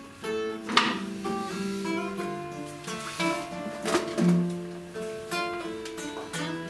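Nylon-string classical guitar played solo: picked notes and chords, with a few sharp strummed chords about one, three and four seconds in.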